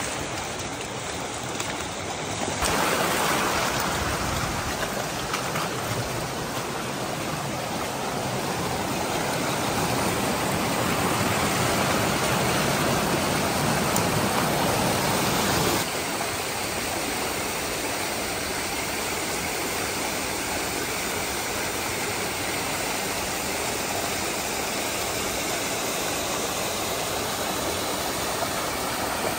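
Creek water rushing steadily over rocks and a small waterfall. The sound shifts abruptly about three seconds in, and again about sixteen seconds in, where it gets slightly quieter.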